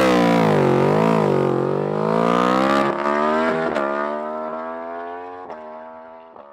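Yamaha R1 crossplane inline-four on a full titanium Akrapovic Racing Line exhaust with no dB killer, revving hard as the bike pulls away and fades into the distance. The revs waver for the first two seconds, then climb steadily, with brief breaks in the sound about three, four and five and a half seconds in.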